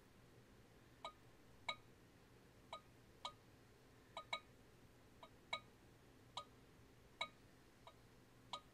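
Handball smacking against a wall: a string of short, sharp pocks, about a dozen, irregularly spaced and often in pairs, each dropping slightly in pitch, over faint hiss.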